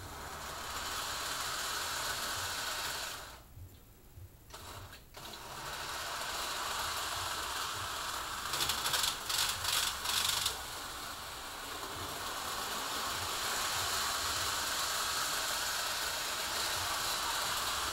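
HO-scale model train running on its track: a small electric motor whirring and wheels rattling over the rails. It cuts out for a couple of seconds about three seconds in, then runs on, with a patch of sharper clicking near the middle.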